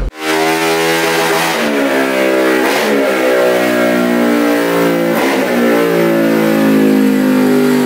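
Motorcycle engine revving hard under load on a chassis dynamometer during a dyno test run.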